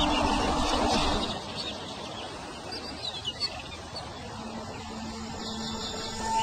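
Soundtrack music fades out in the first second or so, leaving outdoor ambience with a few short, high chirps about three seconds in; the music comes back in faintly near the end.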